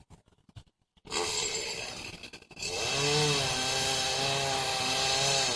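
A two-stroke chainsaw comes in about a second in, then runs at a steady high speed from about halfway, its pitch wavering slightly as it works through the wood.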